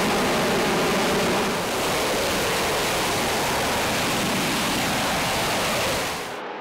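Jet noise from the Boeing X-32B in hover: a loud, steady rush with a few steady tones underneath. It shifts slightly a little under two seconds in, then turns duller and quieter near the end.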